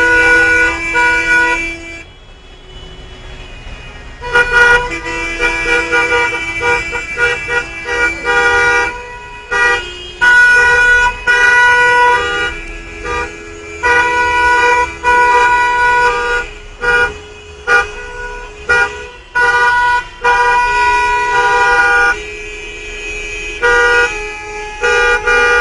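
Many car horns honking together as a protest, overlapping long blasts and short toots at several different pitches. They drop away for about two seconds near the start, then start up again.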